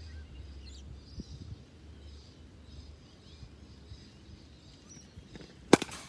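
A cricket bat strikes the ball once with a sharp crack near the end, after a few seconds of birds chirping faintly in the background.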